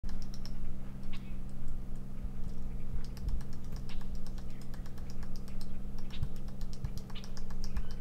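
Woodpecker pecking at wood: irregular runs of quick, sharp taps. A steady low hum runs underneath.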